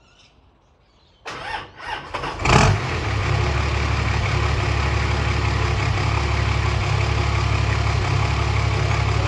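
Nissan GQ Patrol's engine cranking over on its new battery for about a second, catching about two and a half seconds in, then idling steadily with a low, even rumble.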